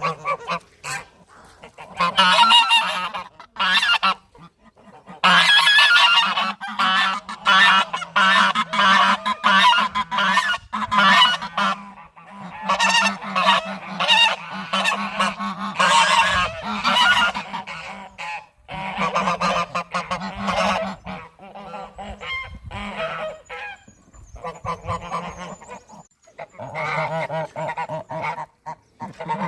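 Geese honking loudly in rapid, repeated runs of calls, with short pauses between runs: breeding-season honking.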